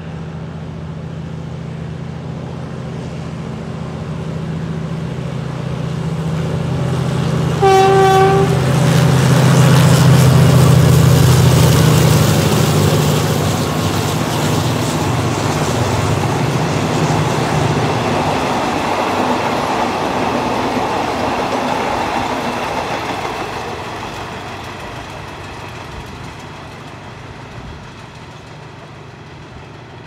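Diesel-electric GEK-class locomotives, one of them a broken-down unit being hauled, pass at the head of a passenger train. The engine drone builds and a short horn blast sounds about eight seconds in. The rumble of the carriages rolling by follows, then fades away.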